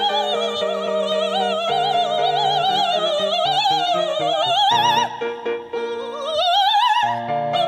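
A woman singing opera in full voice with wide vibrato, accompanied by a grand piano. About five seconds in she breaks off, then sweeps upward to a high held note.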